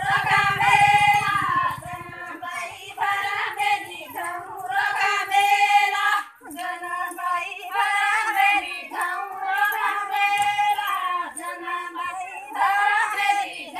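Women's voices singing a Banjara (Lambadi) devotional song, in phrases of a few seconds with short breaks for breath between them.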